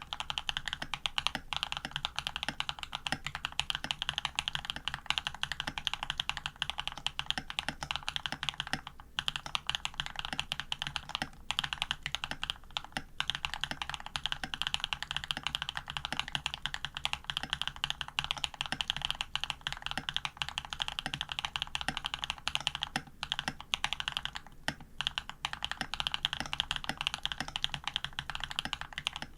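Fast, continuous typing on a custom AR87 mechanical keyboard with lubed Jade cream switches (Krytox 205 and 105), PBT keycaps, an aluminium plate, Cherry stabilizers and bottom foam. Dense keystroke clacks with a few short pauses.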